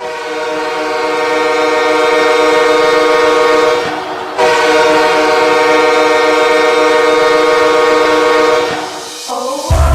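Train air horn sounding two long blasts, a chord of several steady notes, the second blast starting about four seconds in.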